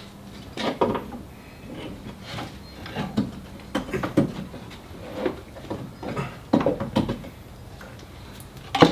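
Irregular clinks and knocks of metal parts and hand tools being handled while car parts are taken off, with the sharpest knock near the end.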